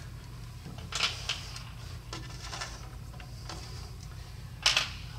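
Light clicks and taps of small metal parts and tools being handled, a few faint ones about a second in and one sharper click near the end, over a steady low hum.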